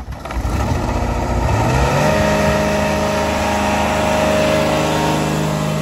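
The Ditch Witch FX30 vacuum excavator's Kubota diesel engine starting up. It catches at once, rises in pitch over about two seconds, then runs steadily at a high speed.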